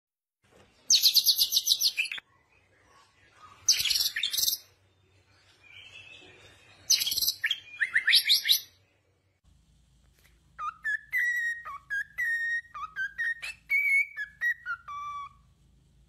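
White-rumped shama singing: three bursts of fast, very high-pitched trilled phrases. About ten seconds in, a cockatiel whistles a tune of short, clear notes for about five seconds.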